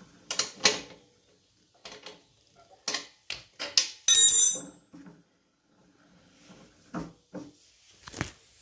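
Hand tools clicking and knocking against a compressor wheel's axle bolt as it is tightened with a wrench and ratchet. About four seconds in, a steel wrench is set down on a concrete floor with a short ringing clang, and a few knocks follow near the end.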